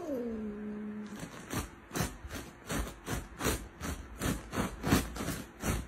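Domestic cat: a call that slides down in pitch and holds low for about a second, then a run of short, sharp hisses, about three a second.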